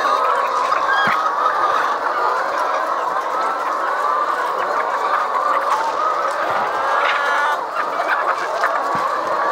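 A large flock of caged laying hens clucking and calling all at once, a dense, steady chorus of many overlapping voices.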